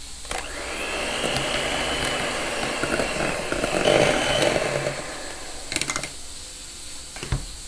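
Electric hand mixer running, its beaters churning cream cheese in a stainless steel bowl to soften it. It starts just after the beginning, runs with a steady whine for about five seconds, then stops, followed by a couple of short knocks.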